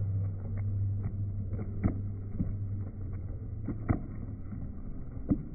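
Muffled, dull low rumble with scattered soft thuds: the footfalls of a pack of runners on the road.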